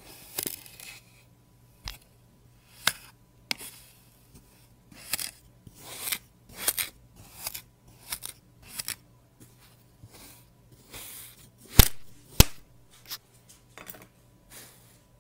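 Kinetic sand being sliced with a plastic knife: a run of short, crisp scratchy rasps, one per cut, at an uneven pace, with sharp clicks in between. Two loud clicks half a second apart come near the end.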